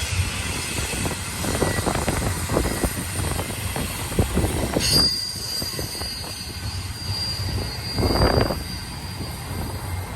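Freight train cars rolling past on a curve, with steel wheels squealing against the rail in a steady high-pitched tone from about five seconds in, over a run of clanks and knocks. A louder rumbling surge comes about eight seconds in.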